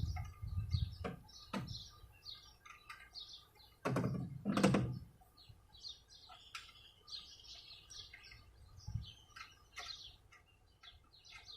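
Small birds chirping over and over, with a few scattered knocks and a louder knock about four seconds in.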